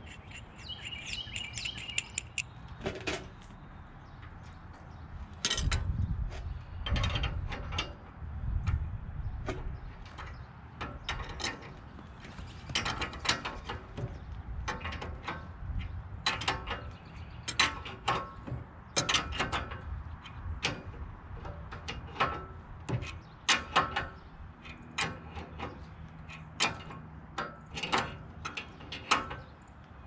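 Irregular metallic clicks and clanks of hand wrenches working nuts on bolts in a steel sawmill base frame, with a few heavier low thuds about six to nine seconds in.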